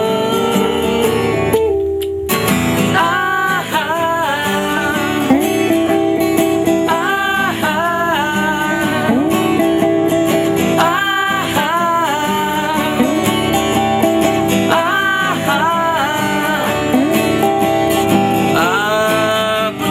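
A band playing an acoustic-guitar-based song, with a melody line in repeated phrases over the guitar and no sung words.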